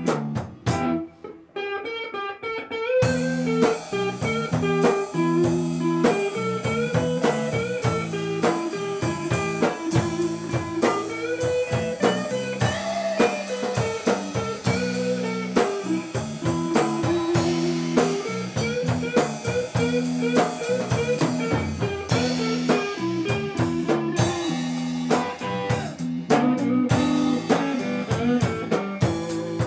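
Blues band playing an instrumental break: an electric guitar lead with bent notes over bass and drum kit. The band drops to a brief lull in the first couple of seconds, then comes back in full.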